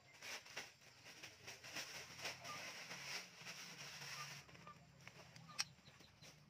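Lumps of charcoal tipped from a plastic bag onto a heap of dry corn cobs, rattling and clattering with the bag crinkling; the clatter stops about four seconds in, and a single sharp click follows near the end.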